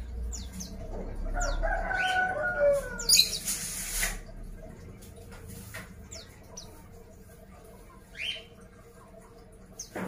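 Caged white-eyes (Zosterops, 'pleci') giving short, thin, falling high calls, with wing flutters as they move about the cage. A longer, lower wavering call runs from about one to three seconds in, and a loud rush of flapping or rustling comes just after three seconds.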